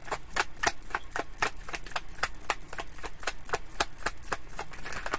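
A deck of tarot cards being shuffled overhand in the hands, each packet of cards dropping with a sharp slap at an even pace of about four a second.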